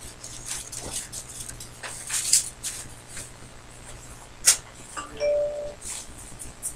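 Light rustling and scattered clicks of paper and cards being handled, with a sharp click about four and a half seconds in. Just after it comes a short two-note chime, a lower note and then a higher one held for about half a second.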